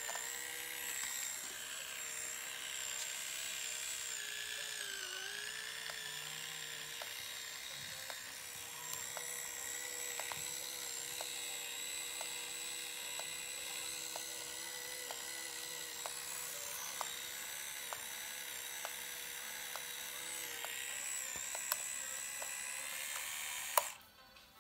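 Small electric motor in a 35mm point-and-shoot film camera rewinding the film: a steady high whine with faint regular ticks. The pitch dips briefly a few times, and the whine cuts off suddenly near the end as the rewind finishes.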